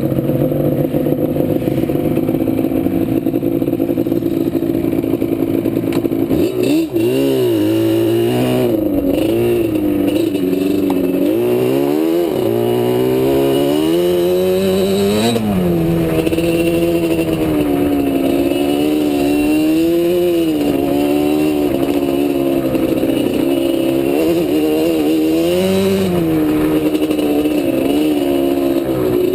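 ATV engine running hard, its pitch rising and falling continually as the throttle opens and closes, with a short drop about six or seven seconds in.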